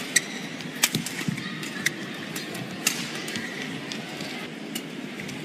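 Badminton rackets striking a shuttlecock in a fast doubles rally: several sharp hits under a second apart, the last about three seconds in, with short squeaks of shoes on the court floor.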